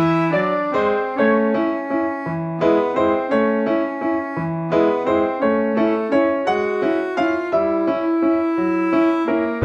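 Background music: a keyboard melody of separate notes following one another in a quick, even run.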